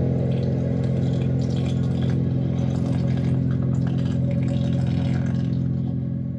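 A steady, mechanical-sounding low drone made of several held tones, setting in abruptly and holding even, beginning to tail off at the very end.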